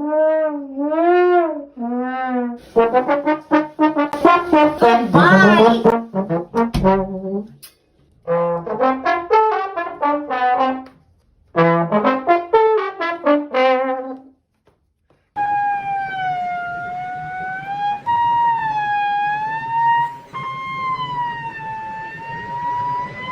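Brass-instrument tones like trombone and trumpet honks: arching notes that bend up and down, then rapid runs of short notes broken by brief gaps, with a moment of silence just before fifteen seconds. After that come long, higher held tones whose pitch wavers slowly, breaking twice.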